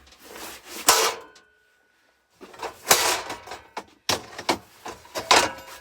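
Hammer blows on a metal scrap step mechanism, four hard knocks a second or so apart, each ringing briefly: a stuck part being beaten apart by force.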